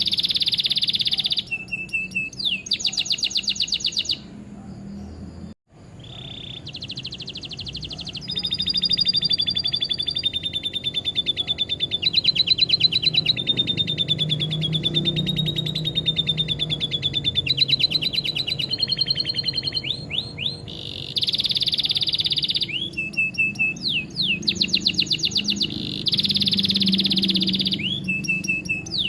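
Domestic canary singing a long song of fast trills and rapid repeated notes, including phrases copied from lovebird song. The song breaks off briefly about five seconds in.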